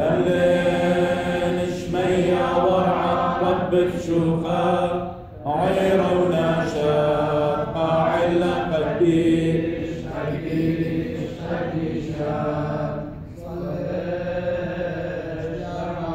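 Liturgical chanting of the Assyrian Church of the East Mass, sung in Syriac by the clergy and deacons at the altar. It goes in long sustained phrases with brief breaks about five seconds in and again near thirteen seconds.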